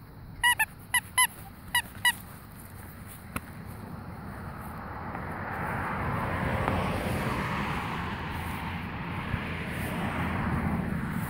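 Miniature American Shepherd puppy giving six short, high yips in quick succession in the first two seconds. Then a low rushing noise builds and lingers.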